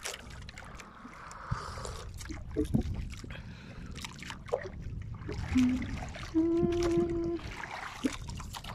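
Water lapping and splashing against a small outrigger boat, with a low rumble of wind and scattered light knocks. About six and a half seconds in, a steady tone sounds for about a second.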